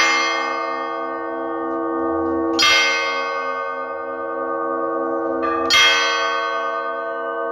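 Russian Orthodox church bell ringing. A heavy bell is struck three times, at the start and then about every three seconds, and each strike rings on in long overlapping tones with a slow pulsing hum beneath.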